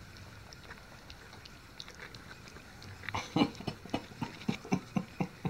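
Dog lapping and smacking at a bowl of soft, wet puppy food. About three seconds in it breaks into a quick run of short wet smacks, about four or five a second.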